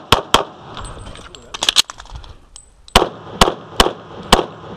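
Glock 35 .40 S&W pistol firing at close range: a quick pair of shots right at the start, then after a pause of about two and a half seconds four more shots about half a second apart. A few quieter, sharper clicks come in between, about a second and a half in.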